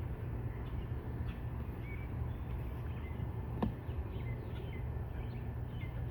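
Faint short bird chirps scattered through, over a steady low rumble, with one sharp click a little past halfway.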